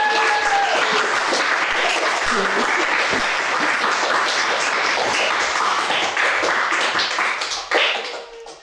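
Applause: a group clapping steadily, with a brief held call over it at the start, dying away near the end.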